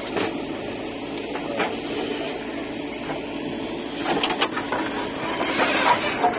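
Diesel engine of the working machinery running steadily, with scattered short knocks and clatters, a little louder about four seconds in and again near the end.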